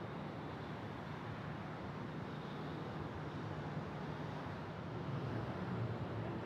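Distant jet aircraft engines giving a steady low rumble with a hiss above it, swelling slightly about five seconds in.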